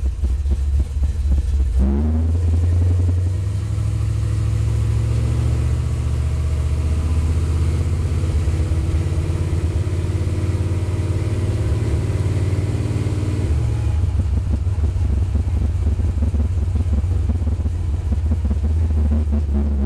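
1968 Chevrolet C10 pickup's engine running while driving, heard from inside the cab. The note rises as it picks up speed about two seconds in, holds steady, then drops back near the middle as the throttle eases off.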